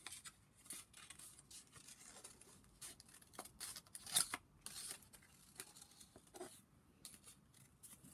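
Scissors snipping through folded card: a run of short, crisp cuts with one louder snip about four seconds in.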